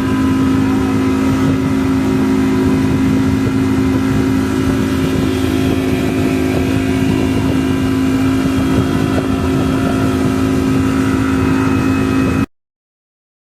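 Small boat's engine running steadily just above idle, a constant hum with no change in speed. The sound cuts off abruptly near the end.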